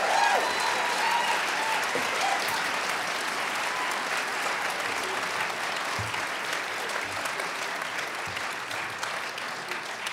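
Audience applauding steadily after a song ends, the applause slowly tapering off.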